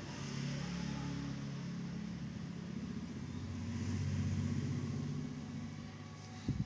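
A motor vehicle's engine passing by, its low hum swelling to a peak about four seconds in and then fading, with a short knock near the end.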